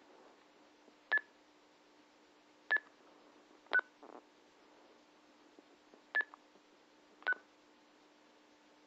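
Five short electronic key beeps from a handheld two-way radio, irregularly spaced and at two slightly different pitches, over a faint steady low hum.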